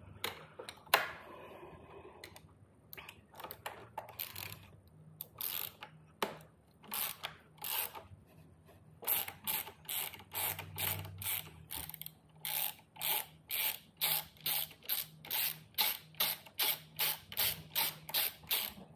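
Hand ratchet wrench clicking as it is swung back and forth on a bolt, in short rattling strokes; irregular at first, then a steady run of about two strokes a second through the second half.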